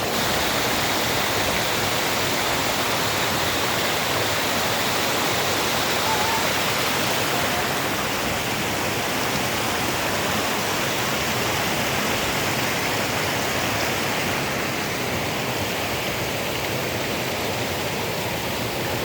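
Waterfall pouring steadily, an even, unbroken rush of falling water.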